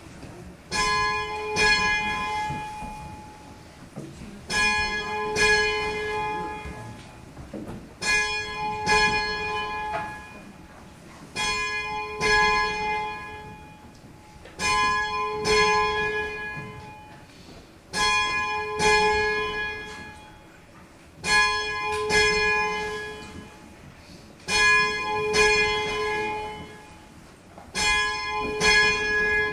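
Church bell tolling for a funeral, struck in pairs of strokes about every three and a half seconds, each pair ringing and fading before the next, heard from inside the church.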